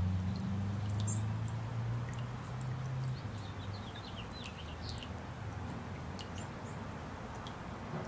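Small fountain jet in a water-filled bird bath splashing and dripping, a steady patter of water with many small drips. A low hum sounds under it for the first three seconds, and a few faint high chirps come about halfway through.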